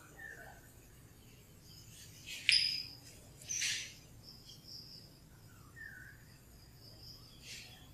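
Chalk scraping across a blackboard in two short strokes, a little after two and three seconds in, and a fainter stroke near the end. Faint bird chirps sound in between.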